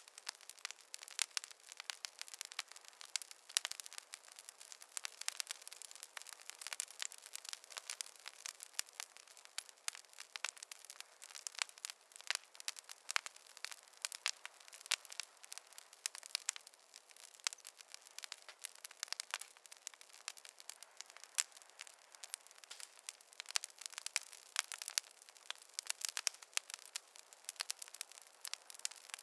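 Campfire crackling: a dense, continuous run of sharp snaps and pops over a soft hiss, with no low rumble.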